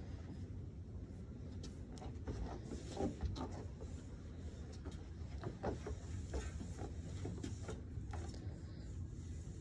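Light, irregular taps and knocks of a pygmy goat's hooves and a walker's footsteps on wooden deck boards, over a steady low rumble.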